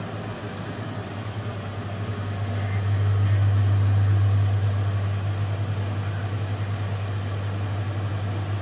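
A steady low hum that grows louder in the middle, then settles back.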